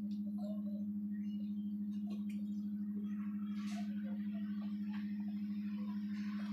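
Steady low humming drone with a fast, even wobble in loudness, over faint scattered street sounds.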